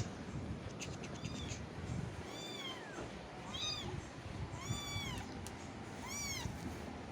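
Young kittens mewing: about four high-pitched mews, each rising and falling, in the second half, over a soft low rustling.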